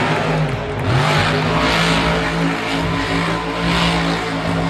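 Monster truck's V8 engine revving hard at high rpm, climbing in pitch right at the start and then held high.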